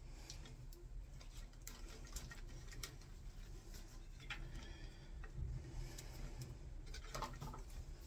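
Faint scattered clicks and rustles of electrical cable cores being handled and pushed into a plastic switch back box, over a low steady hum.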